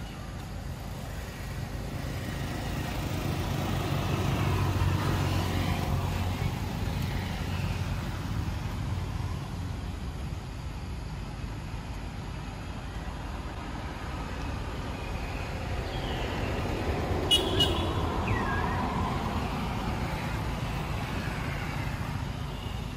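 Motor vehicle engine hum that swells and fades twice, loudest about five seconds in and again near eighteen seconds, like vehicles passing nearby, with a brief sharp sound near the second peak.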